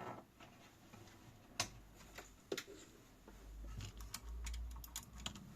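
Light clicks and taps from hands working at a bare motherboard on a test bench while it is switched on again: two single sharp clicks, then a quick run of small clicks near the end. A low hum underneath grows louder a little past halfway.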